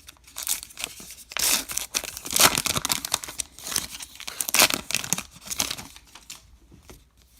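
A baseball card pack wrapper being torn open and crinkled by hand, in irregular rustling bursts that die down over the last second or so.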